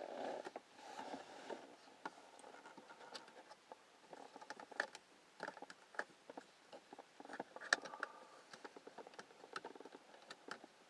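Irregular small clicks, taps and scrapes of hands working loose plastic dash trim and switch parts, with soft rustling near the start.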